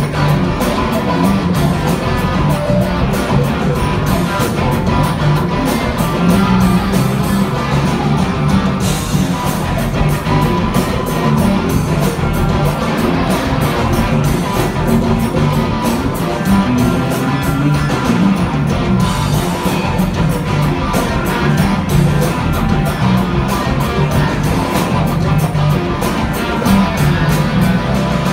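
Live rock band playing an instrumental passage: electric guitars over bass guitar and drum kit, with a tambourine.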